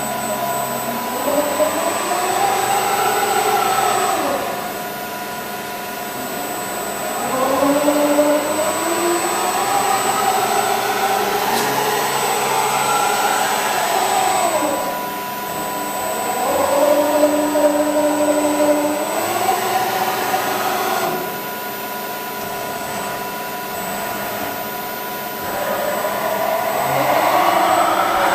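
Motor drive of a Knuth KB 1000 A CNC knee-type milling machine whining up in pitch, running, then winding back down, four times over, above a steady high electrical tone.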